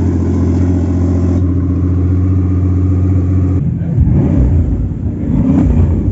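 Supercar engine idling with a steady, deep note. About three and a half seconds in, the sound switches abruptly to an uneven, rough rumble.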